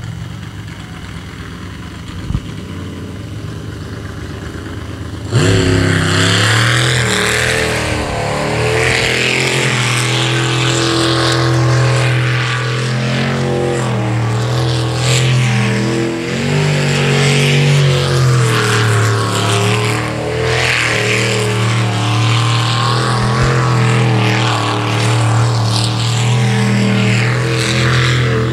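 Jet sprint boat's engine running low, then about five seconds in it opens suddenly to full throttle for the launch. It runs hard through the rest of the course, its pitch dipping and rising through the turns, over the hiss of the jet's spray.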